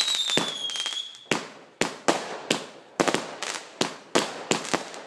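Maximum Showtime multi-shot firework firing: a whistling shot slides slowly down in pitch for about the first second, then it cuts off and about ten sharp bangs follow, roughly two a second, each fading quickly.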